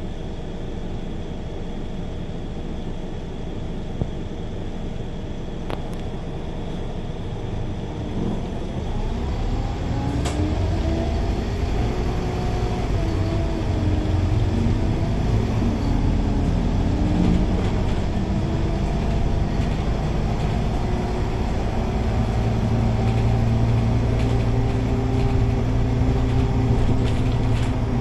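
Scania K280UB city bus heard from inside at the front, its engine first idling steadily while stopped in traffic. About nine seconds in it pulls away: the engine note rises and falls as the bus gathers speed, then settles into a steadier, louder drone while cruising.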